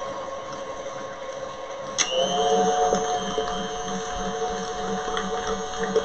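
Stand mixer's motor running with its whisk attachment beating cream cheese in the steel bowl. About two seconds in there is a click, and the motor's whine shifts to a new pitch and gets a little louder.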